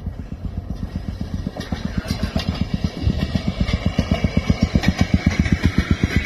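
Small engine of a railroad speeder (track motorcar) passing close by on the rails, running with a fast, even putt-putt beat that grows louder as it comes alongside.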